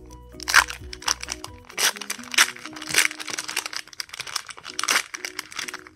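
Foil Pokémon booster-pack wrapper crinkling as it is pulled open by hand, in about five sharp crackles. Background music plays under it.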